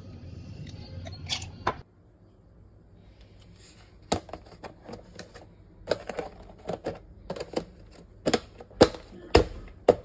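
Plastic lid being pressed down and snapped onto a food storage container: a string of sharp, irregular clicks and snaps starting about four seconds in, the loudest near the end.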